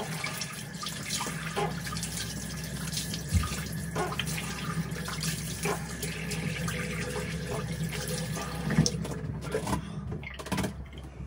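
Tap running into a bathroom sink while water is splashed onto the face to rinse off facial soap, with scattered splashes; the running water dies away near the end.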